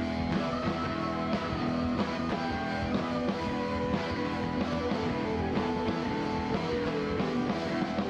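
A live rock band playing, led by strummed guitars.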